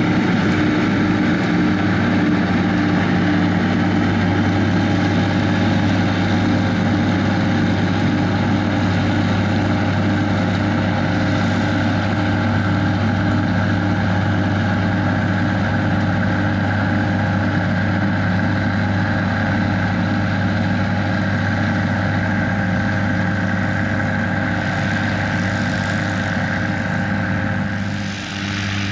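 Schlüter tractor diesel engines running steadily under load while harvesting sugar beet, a constant engine drone. It dips briefly in level near the end.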